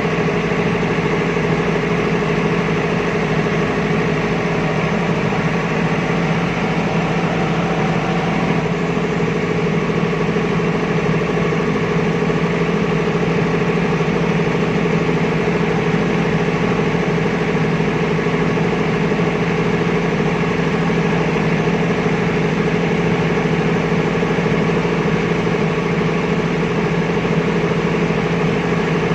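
Diesel generator set's engine running steadily at constant speed, a loud, even hum.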